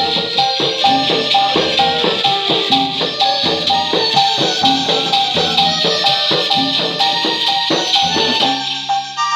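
Electronic keyboard playing a joget dance tune over a steady shaker-and-drum rhythm. Near the end the beat stops and a held chord rings on.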